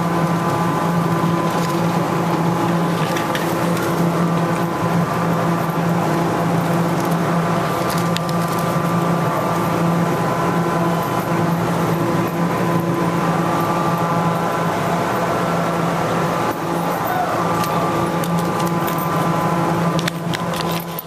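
Steady electrical hum of a claw machine, one low even drone with fainter higher tones above it, and a few faint knocks and rustles.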